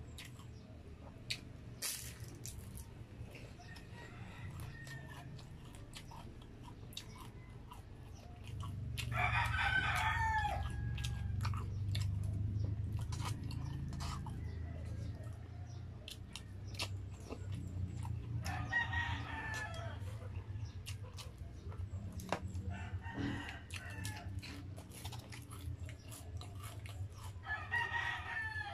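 A rooster crowing several times in the background, each crow lasting about a second and coming every five to ten seconds. Close by are chewing and the clicks of a plastic spoon and fork in a takeout box.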